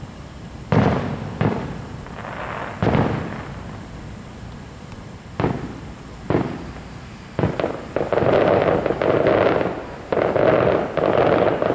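Fireworks shells going off: about seven sharp booms a second or so apart, then two stretches of dense crackling, each under two seconds, near the end.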